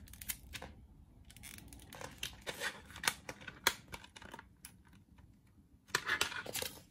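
A plastic CD jewel case being pressed shut and handled: scattered small clicks and plastic taps, with a denser burst of handling clatter about six seconds in.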